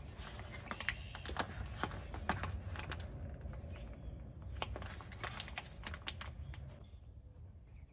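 Irregular light clicks and crinkles of hands handling the gear-oil squeeze bag and fill hole beneath the differential, over a steady low rumble; the clicking dies down about seven seconds in.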